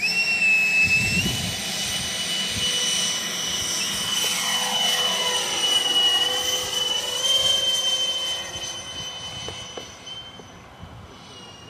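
Twin 92 mm electric ducted fans of a Mig29 RC model jet, driven by 2000Kv brushless motors, spooling up sharply to a high whine for a hand launch at just over half throttle. The whine steps up about a second in, sweeps as the jet passes close by, then fades as it flies away.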